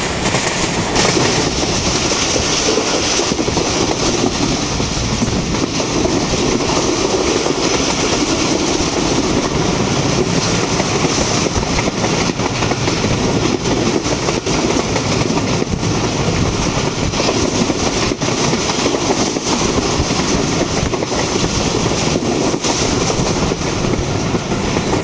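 Passenger train running at high speed, heard from an open coach door: a steady rush of wind and wheel-on-rail noise, with occasional faint clicks from the rails. The wind pushes hard against the phone's microphone.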